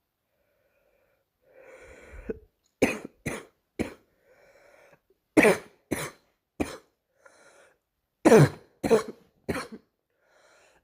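A girl coughing in three bouts of three coughs each, starting about two seconds in, with a breath drawn in audibly before each bout.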